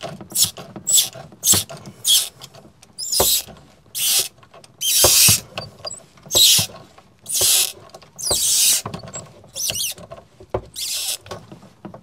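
Wrench tightening a water-line fitting on the heater's plumbing: a series of short scraping, clicking strokes, quick at first and then longer rasping strokes of about half a second each.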